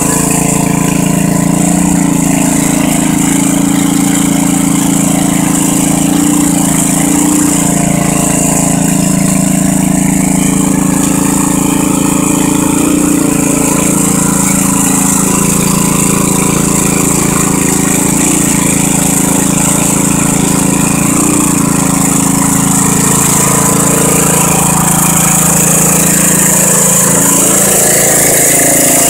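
Riding lawn mower's engine running loud at a steady speed as the mower is driven through mud.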